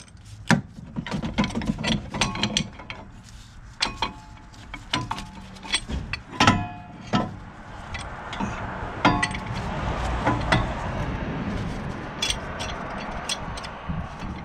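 Hand tools clicking, knocking and clinking against a brake caliper as a C-clamp is worked to push back a stiff caliper piston. Some of the knocks ring briefly like metal. A rougher, steadier noise runs through the second half.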